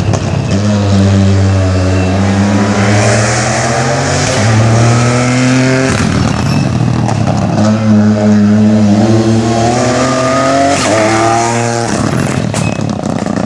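Ford Fiesta rally car's engine accelerating hard at full throttle. Its pitch climbs, then drops sharply at each gear change, several times over.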